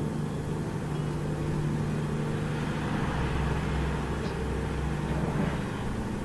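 A steady low droning hum of several held tones over a noisy rumble, swelling slightly about halfway through. It is an unexplained night-time drone that sounds like an airplane, though the uploader believes it is not one because it went on for hours without stopping.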